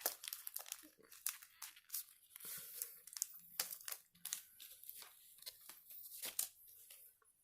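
Foil booster pack wrapper crinkling and tearing in the hands, a string of irregular sharp crackles.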